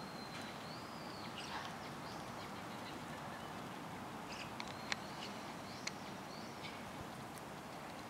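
Thin, high whistled birdsong from a small bird comes in two spells, near the start and again around five seconds in. A few sharp clicks and a steady outdoor hiss lie underneath.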